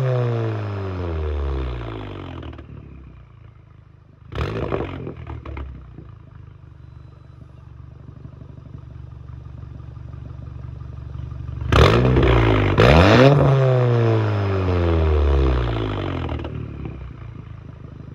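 Volkswagen Mk7 Golf R's turbocharged 2.0-litre four-cylinder on a 4-inch downpipe and cat-back exhaust with 5-inch mufflers, free-revved while parked. The revs fall back to idle, then a short sharp blip comes about four seconds in. After a stretch of steady idle, two quick blips come around twelve seconds in and die away slowly to idle near the end.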